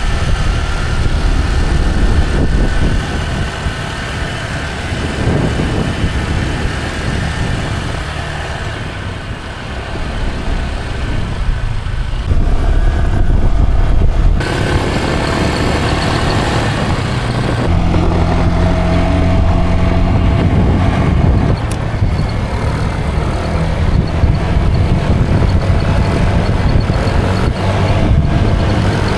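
Motor scooter running on the road, its engine hum under heavy wind rumble on the microphone. The sound changes abruptly about 14 and 18 seconds in, and a steadier engine hum stands out after that.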